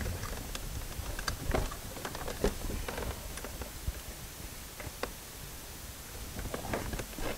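Irregular light plastic clicks and small knocks from hands working the clips and wiring connectors on a 2008 Hyundai Santa Fe's front door trim panel while it is being detached.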